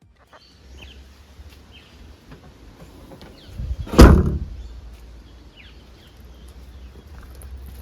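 A car door shutting with a single loud thump about four seconds in, over a low steady rumble.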